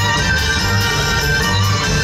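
Stage show music with sustained melody lines over a steady low beat.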